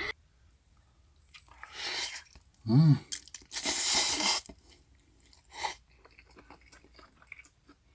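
A person eating Paldo Bibimmyeon spicy mixed instant noodles: a noisy slurp of noodles lasting about a second near the middle, with shorter slurping and chewing sounds around it and a short voiced 'mm' about three seconds in.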